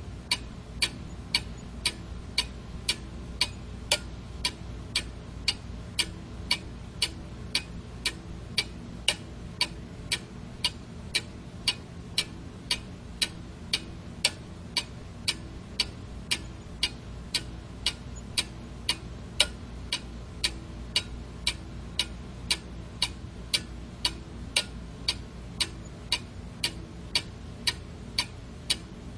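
Clock ticking steadily, about two sharp ticks a second, over a low steady hum.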